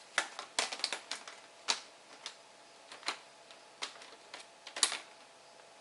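Irregular sharp plastic clicks and taps as a laptop's screen bezel cover is handled and fitted onto the display lid, the loudest click a little before the end.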